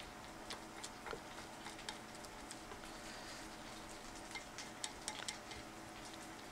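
Chopsticks stirring raw egg and tempura crumbs in a glass bowl, with faint, irregular clicks as the sticks tap the glass. A faint steady hum runs underneath.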